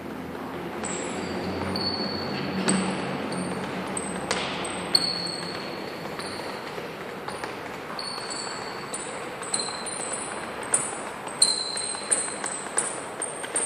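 Sneakers squeaking and feet tapping on a gym floor during fast agility-ladder footwork: many short high squeaks, each under a second, among quick footfalls, echoing in a large sports hall.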